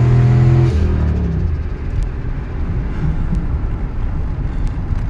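Turbocharged Ford F-150's engine pulling hard at full throttle, heard from inside the cab; about a second in the throttle is lifted and the engine note drops away, leaving a steady road and tyre rumble as the truck coasts down from about 70 mph after the run.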